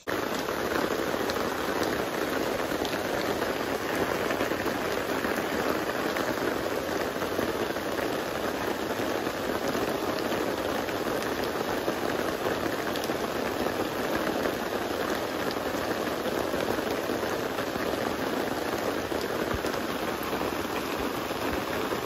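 Steady rain falling: an even hiss with scattered drop ticks.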